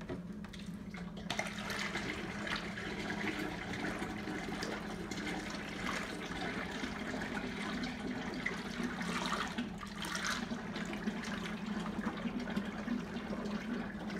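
Used deep-fryer oil pouring from a tipped plastic bucket into a funnel: a steady splashing, trickling pour that starts about a second in, over a steady low hum.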